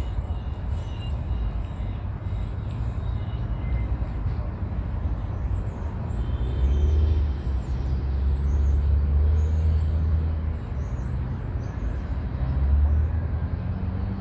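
Wind buffeting the microphone, a steady low rumble that swells in stronger gusts about halfway through and again near the end.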